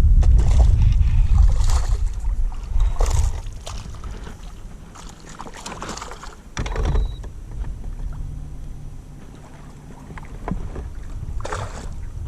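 Wind rumbling on the microphone aboard a boat, heavy for the first three seconds or so and then dying down, with scattered short knocks through the rest.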